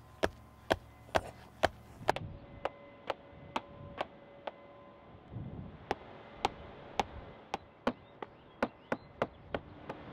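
Mallet hammering landscape edging stakes into the ground: sharp, evenly spaced strikes about two a second, pausing for a second or so about halfway through, then resuming.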